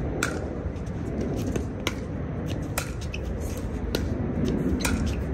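Pickleball paddles striking a plastic ball, sharp pocks about a second apart, over a steady low rumbling background noise.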